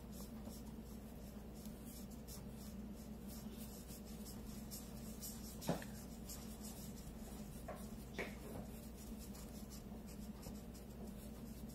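Two markers scribbling on paper, a faint steady scratching of quick back-and-forth strokes as small circles are coloured in. A brief soft sound stands out about six seconds in.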